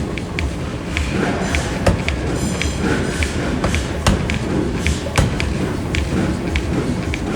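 Pneumatic power hammer forging metal: a run of repeated heavy thuds, with sharper metallic strikes every second or so.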